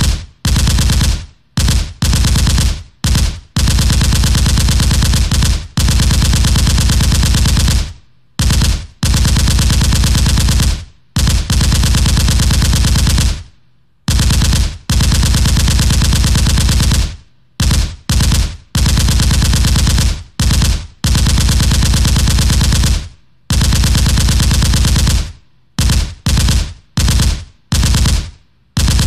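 Machine-gun fire sound effect in long rapid bursts separated by brief pauses, the bursts getting shorter and choppier near the end.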